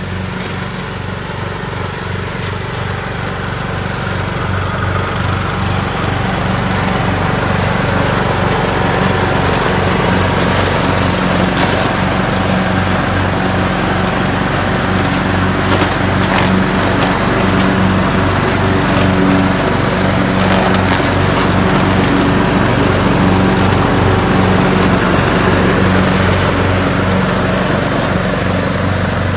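Small gasoline grass trimmer (brush cutter) engine running steadily as it cuts grass, its hum wavering slightly and getting louder over the first few seconds.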